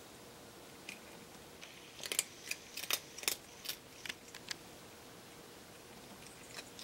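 Domestic cat crunching dry kibble from a plastic feeder bowl: a run of sharp, irregular crunches starting about two seconds in, with a few more near the end.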